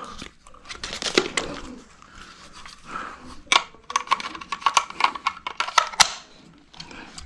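A series of sharp clicks and knocks, thickest from about three and a half to six seconds in, with a faint thin whine running alongside for a second or so.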